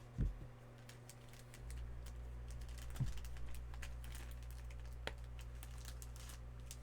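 Hands working at a desk: a run of light clicks and rustles with three soft knocks, the first just after the start, one about three seconds in and one about five seconds in. A low steady hum comes in about a second and a half in.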